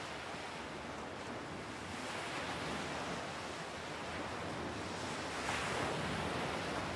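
Sea surf washing onto a beach: a steady rushing hiss of waves that swells about two seconds in and again more strongly near the end.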